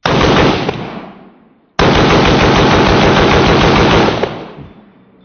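A gun fired in two rapid-fire strings: a short burst right at the start, then a longer string of quick shots lasting about two and a half seconds. The trigger had been dead and has just started working again.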